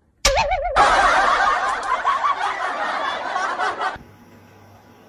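Loud laughter that starts suddenly with a wavering pitched cry and goes on for about three and a half seconds, then cuts off abruptly.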